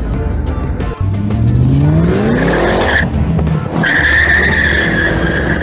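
Ford Mustang accelerating hard, its engine note rising over about two seconds, then a long, high tyre squeal that breaks off briefly and starts again.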